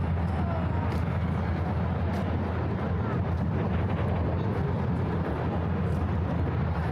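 Steady low rumble of distant city traffic, even in level throughout, with faint scattered higher sounds over it.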